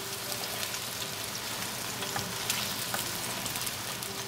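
Beaten eggs frying in hot olive oil with cumin seeds in a pan over high gas: a steady sizzling hiss with scattered small crackles.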